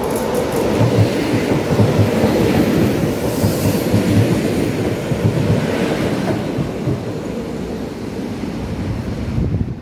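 EN57KM electric multiple unit passing close alongside the platform, its wheels clacking over the rail joints. It runs quieter for the last few seconds as it moves away, and the sound drops suddenly near the end.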